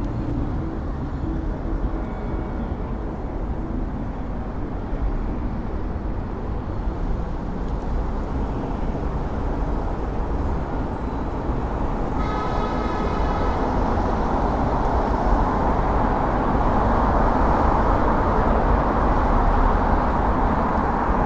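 City traffic and road noise heard while riding in a traffic lane, with a car horn sounding once for about a second and a half about twelve seconds in. The traffic noise grows louder over the last several seconds.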